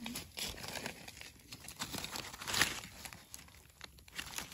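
Dead leaves on the forest floor rustling and crackling as they are disturbed, in irregular crackles with a louder one about two and a half seconds in.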